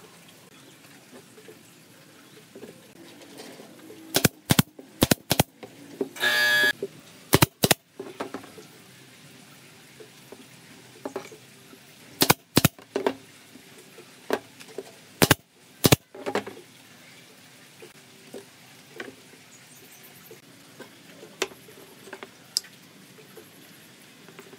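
Pneumatic brad nailer firing into pine frame joints: about ten sharp shots, mostly in quick pairs, with a short noisy burst among the early ones. Fainter knocks of wooden pieces follow near the end.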